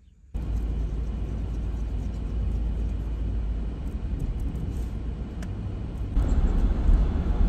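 A car driving along a road, heard from inside the cabin: a steady low rumble of road and engine noise that starts abruptly about a third of a second in and grows louder about six seconds in.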